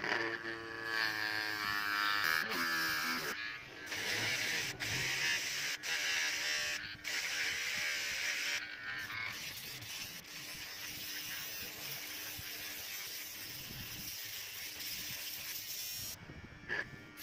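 Small electric motor of a homemade pencil sharpener running, its whine gliding up and down in pitch over the first three seconds, then settling into a steady buzz with a few sharp clicks.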